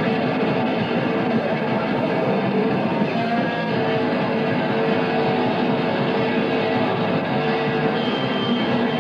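Rock music led by electric guitar, playing steadily with little treble.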